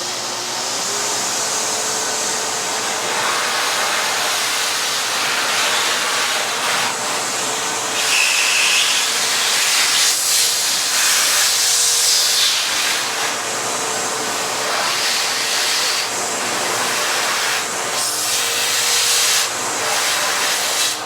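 Hoover Commercial HushTone 15-inch vacuum running, with the steady whine of its suction motor under a rush of air that swells and eases as it is worked. The air noise grows louder about a third of the way in.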